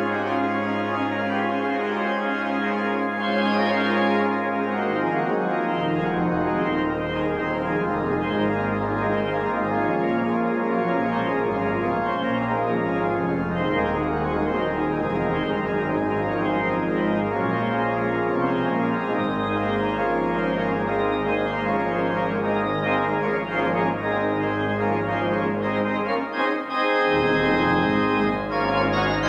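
Church organ playing full, sustained chords on manuals and pedals. The pedal holds one low note for about the first six seconds, then moves through changing bass notes.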